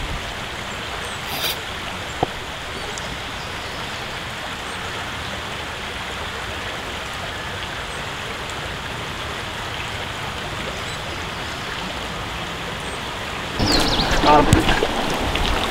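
Small woodland stream running over rocks, a steady even wash of water. About three-quarters of the way through it turns louder and choppier, as from a shallow riffle close by.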